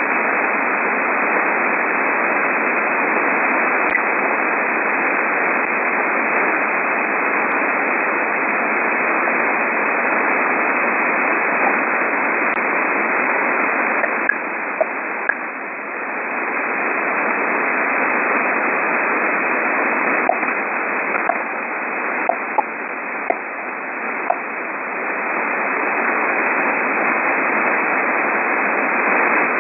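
Shortwave receiver tuned to 12.9–13.2 MHz, giving steady narrow-band static with short pips or ticks coming at random and at varying strength, a few together about halfway through and several more in the latter part. Their origin is unknown.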